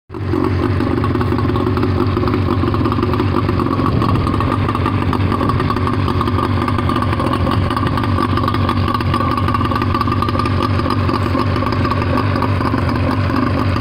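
Johnson 48 hp two-stroke outboard motor idling steadily, running on its trailer out of the water.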